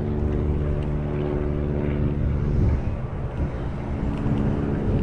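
Steady drone of a distant engine with a low rumble beneath it; the drone fades out about halfway through.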